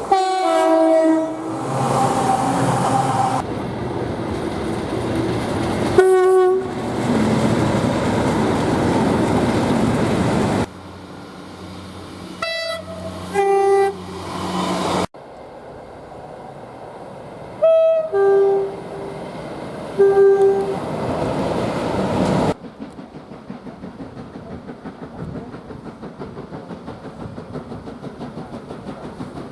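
Locomotive two-tone air horns sounding on several different trains, cut one after another. A blast dropping in pitch at the start is followed by others about six seconds in, a few short toots a little later, and two two-note blasts near the eighteen- and twenty-second marks, all over the loud noise of trains passing. After the last cut there is a quieter, rhythmic clatter of train wheels.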